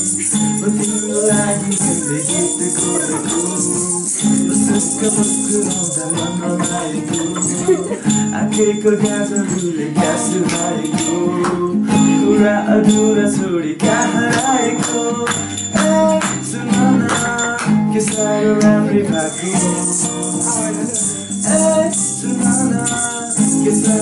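Acoustic guitar strummed in a steady rhythm under a young man's singing, with a handheld shaker rattled along to the beat.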